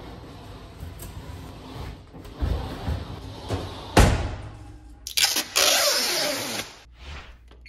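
Freestanding electric range being shoved into its opening: metal scraping and bumping, with a hard knock about four seconds in and a longer loud scrape about a second later.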